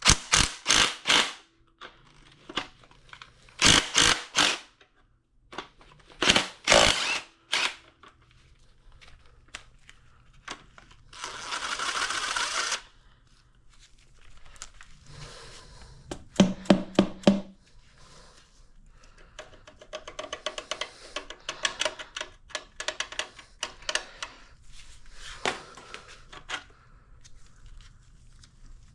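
Hand wrench work on a Model A Ford connecting rod cap's 5/8-inch nuts: separate metal clicks, clinks and knocks, with a spell of quick, dense clicking in the second half.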